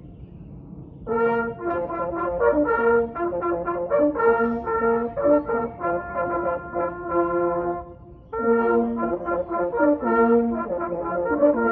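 Small brass ensemble playing a piece in several parts, with a short break at the start and another about eight seconds in between phrases.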